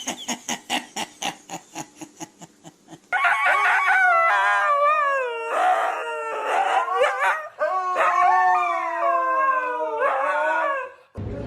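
A dog howling in a series of long, wavering calls that fall in pitch, after a fast run of short rhythmic pulses that fade away over the first few seconds.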